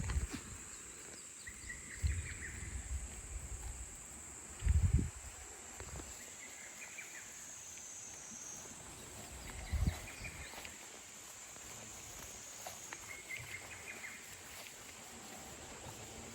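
Outdoor insect ambience: a steady, high-pitched insect drone, with short chirps coming back every few seconds. A few dull low thumps break in, the loudest about five seconds in.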